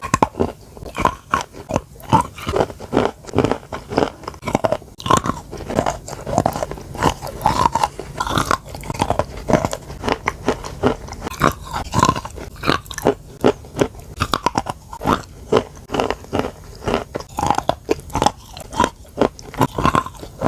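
A person biting and chewing soft, creamy chalk, giving crisp crunches two or three a second with no let-up.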